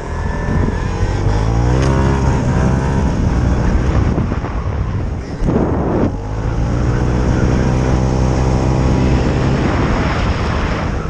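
Honda Dylan scooter engine, said to have a 150 cc kit and an aftermarket variator, revving hard as the scooter accelerates and then holding high revs. About halfway in the revs drop briefly with a rush of noise, then climb again and hold until they ease off near the end.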